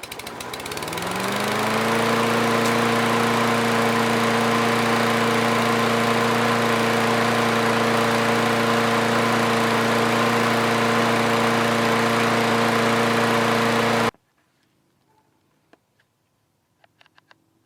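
Lawn mower engine, newly fitted with a replacement carburetor, catching and spinning up to speed over the first couple of seconds, then running steadily and smoothly. The sound cuts off abruptly near the end.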